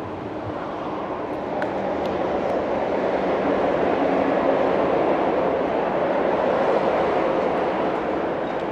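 MTR Q-train electric multiple unit running past on the rails: a steady rumble that grows louder as it approaches and eases slightly near the end.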